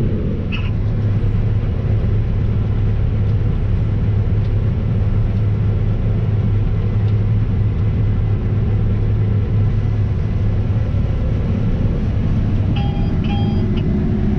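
Case IH 9250 Axial-Flow combine running steadily while harvesting wheat, a constant low machine hum. Two short electronic beeps sound near the end.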